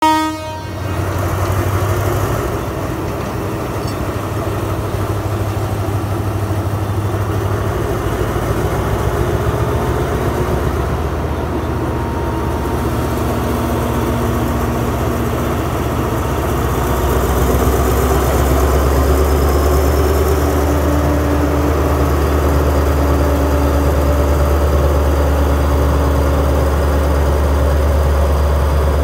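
Alsthom AD24C diesel-electric locomotive's engine running with a steady low drone as it hauls a freight train. The drone grows louder and heavier about halfway through.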